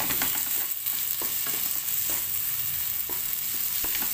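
Wooden spatula stirring and scraping a spiced chicken and onion filling in a nonstick pan, with irregular strokes over a steady frying sizzle.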